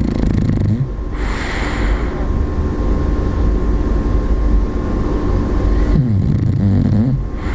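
Bulldog snoring in its sleep: a low rattling snore at the start and again about six seconds in, with a hissing breath about a second in, over a steady low rumble.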